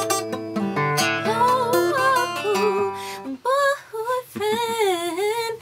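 Acoustic guitar strummed in chords, then from about three and a half seconds in a woman's voice singing a wavering, drawn-out line over sparser playing.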